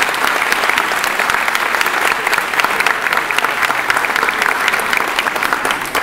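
Large seated audience in an auditorium clapping, a dense, steady applause.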